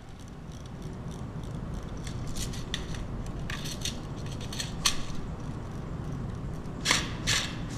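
Clicks and rattles of an airsoft rifle being handled during a magazine change, a few scattered knocks with the sharpest click about five seconds in.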